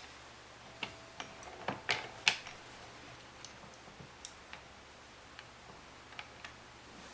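Scattered light clicks and taps of the pinball diverter assembly's parts being handled and fitted back together, with the loudest pair about two seconds in.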